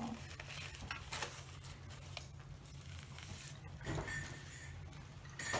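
Quiet room with a low steady hum and faint scattered clicks and rustles from handling and eating a cheesesteak, with a short muffled sound about four seconds in.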